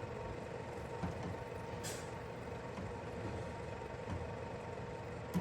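Steady machine hum in a kitchen, with a short hiss about two seconds in and a sharp clack near the end.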